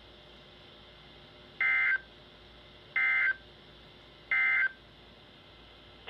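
Emergency Alert System end-of-message code: three short, identical bursts of screechy digital data tones, about a second and a half apart, signalling the end of the alert.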